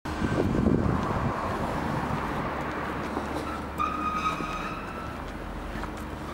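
Diesel engine of an Atlas Copco XAHS426CD portable air compressor running steadily, with a brief high whistle about four seconds in.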